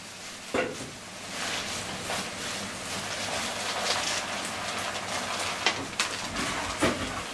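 Dried beans pouring from a plastic bag into a plastic tub: a steady pattering rush that builds about a second in, with the bag crinkling and a few sharp clicks.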